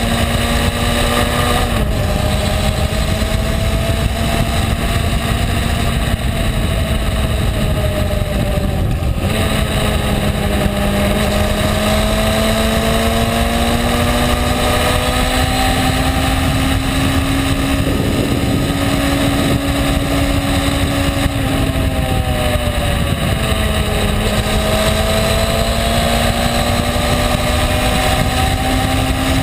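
Honda CB600F Hornet's inline-four engine running at a steady cruising speed, its pitch slowly rising and dipping a few times as the throttle changes, under a constant rush of wind and road noise.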